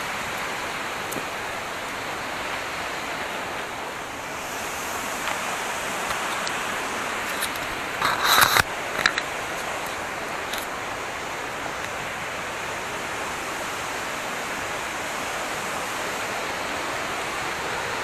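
Steady rushing of a waterfall plunging down a rock face. A short rustling clatter comes about eight seconds in, with a couple of small clicks just after.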